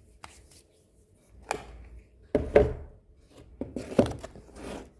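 Irregular knocks and thumps from objects being handled, with several sharp strikes, the loudest about two and a half and four seconds in.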